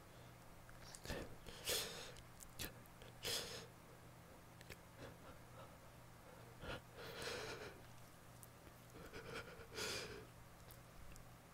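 A person's short, quiet sniffs and catching breaths between sneezes during a sneezing fit set off by air freshener, about eight of them in small clusters, over a faint steady low hum.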